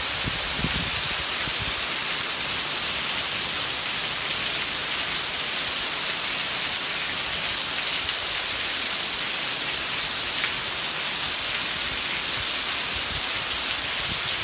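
Heavy rain pouring steadily onto a garden and tiled patio, with runoff streaming off the roof edge, a dense even hiss. A few low rumbles in the first second.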